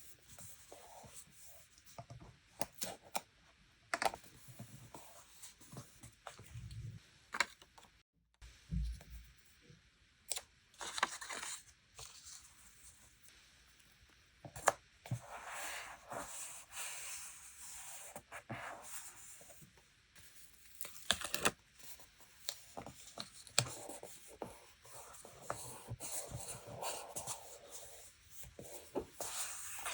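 Paper and stickers being handled for journal decorating: rustling, tearing or peeling in several short stretches, with many scattered taps and clicks and a couple of soft thumps about a quarter of the way in.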